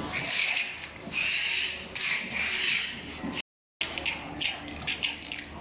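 Aluminium rack parts rubbing and scraping as they are slid and fitted together by hand, in repeated short strokes.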